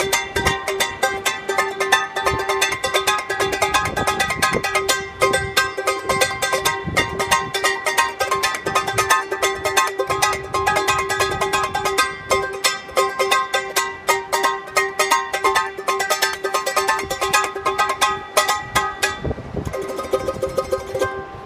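Tahitian tenor ukulele with fishing-line nylon strings, strummed rapidly in an even, fast rhythm on a held chord. The strumming stops about two seconds before the end, leaving a fainter rustle.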